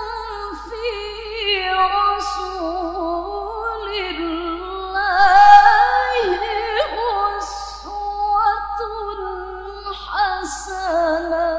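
A woman reciting the Qur'an in melodic tilawah style into a microphone, holding long high phrases full of quick wavering ornaments. Her voice climbs to its highest point a little past the middle, then the last phrase falls and stops near the end.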